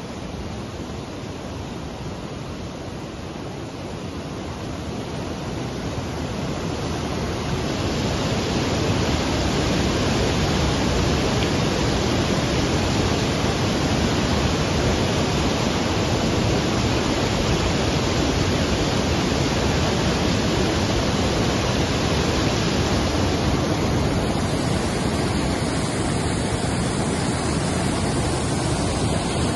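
Floodwater rushing and churning in a strong torrent: a loud, steady rush that grows louder over the first several seconds and then holds.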